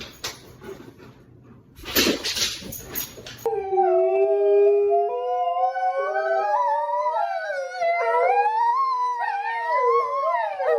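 Several canines howling together in chorus, their overlapping howls rising and falling in pitch, beginning abruptly about three seconds in. A loud rustling noise comes before it.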